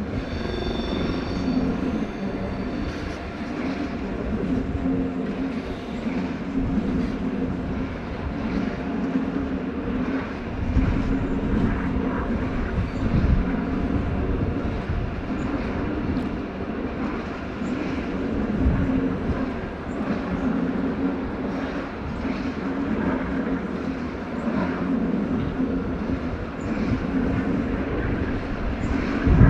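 Train at a station, a steady low mechanical hum with faint clicks throughout. A brief high whine sounds in the first two seconds.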